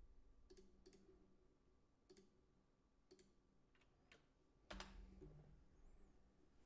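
Faint, scattered computer keyboard keystrokes: about six separate clicks spread over several seconds, the loudest about two-thirds through with a dull knock under it.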